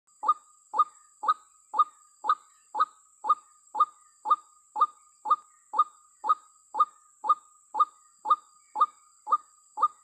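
White-breasted waterhen (ruak-ruak) lure call: a short, loud note repeated very evenly about twice a second, used to draw other waterhens to the trap.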